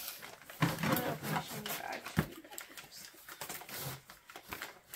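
Plastic poly mailer bag rustling and crinkling as it is handled and cut open with scissors, with scattered small clicks. A short low vocal sound comes about a second in.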